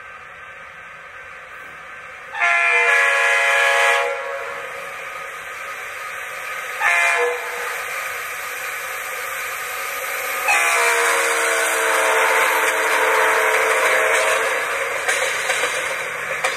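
Leslie multi-chime locomotive air horn sounding a chord: a blast of about a second and a half, a short blast, then a long held blast, over steady train noise.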